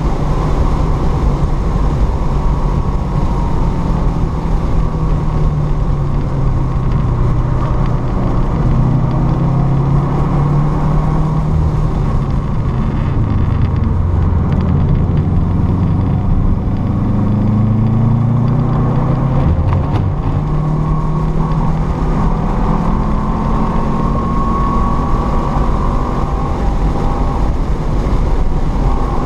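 Car engine heard from inside the cabin on a race track, running near 6,000 rpm, then dropping in pitch as the car slows for a corner around the middle and climbing back to high revs under acceleration, with wind and road noise throughout.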